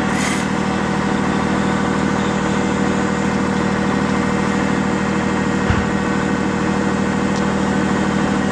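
Vehicle engine idling steadily, a low even hum, with a short low thump about six seconds in.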